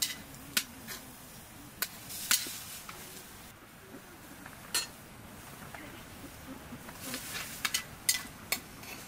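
Metal spoons clinking and scraping on ceramic plates while people eat, in scattered light sharp clicks. Near the end there is a soft rustle of flatbread being torn.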